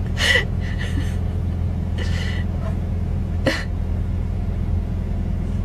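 Car engine idling with a steady low rumble, with three short scratchy swipes spaced about a second and a half apart: the windshield wipers sweeping across the glass.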